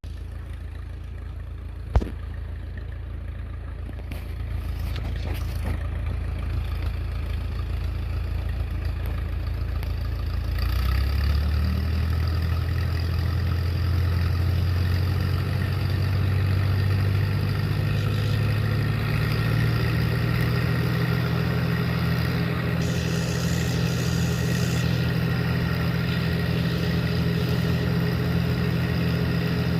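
Tractor engine running at low speed, then throttled up about a third of the way in, its pitch climbing over several seconds before holding steady at a high, even speed. A single sharp click about two seconds in.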